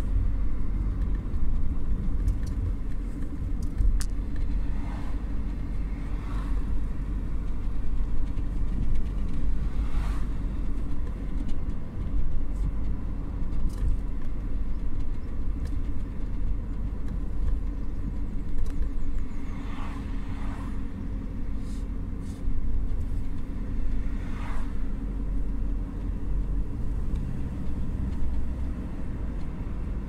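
Steady low road and engine rumble of a moving car heard from inside the cabin, with a few faint knocks and clicks scattered through.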